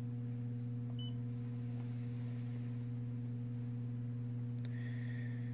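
Steady low electrical hum, with a short faint high beep about a second in and a faint click followed by a soft tone near the end.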